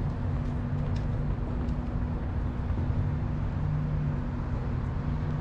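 Steady background noise of an outdoor tennis court: a low rumble with a constant low hum under it, and no distinct hits.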